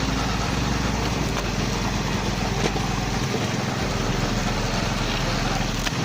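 Small gas engine running steadily, a continuous machine noise with no letup.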